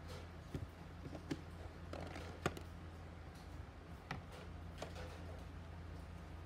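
Scattered light plastic clicks and knocks as the lid of a plastic tub is handled and lifted off, the sharpest about two and a half seconds in, over a steady low hum.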